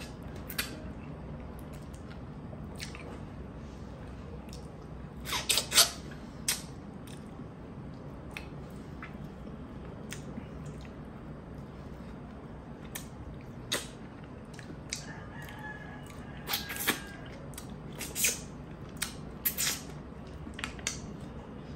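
Close-miked eating sounds: scattered wet smacks, sucks and tongue clicks as braised tuna eyes are sucked and chewed. There is a cluster about five seconds in and several more in the last few seconds.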